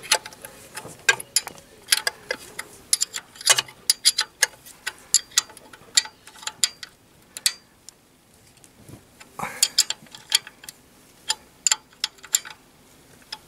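Steel ring spanner working a bolt on a tractor's cover plate: a run of sharp metal clicks, a few a second, with a short pause about two thirds of the way through.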